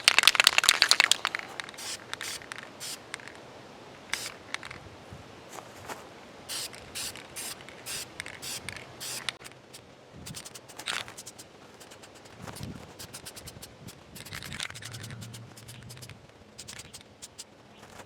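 Aerosol spray paint can: a quick rattle for about the first second as it is shaken, then a string of short hissing spray bursts with small handling noises between them.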